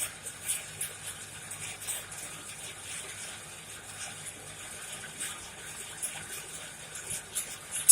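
Coal forge fire burning with a steady rush of air, a faint low hum underneath, and scattered sharp pops and crackles, one loud pop at the very end.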